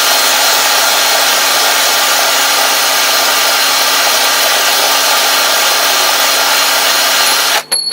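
Electric drill spinning an engine stud while a wire brush scrubs its thread clean: a steady motor whir under a loud, even scratching hiss. It cuts off suddenly near the end.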